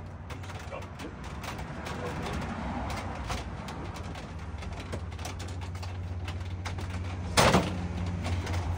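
The plastic front bumper cover of a 2024 Toyota Tacoma being pried and pulled loose by hand, with scattered light clicks and one loud, short snap about seven and a half seconds in as a retaining clip lets go. A steady low hum runs underneath.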